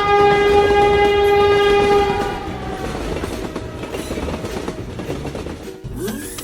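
Train horn sounding one long steady note that stops about two seconds in, over the running noise of a moving train that carries on after it.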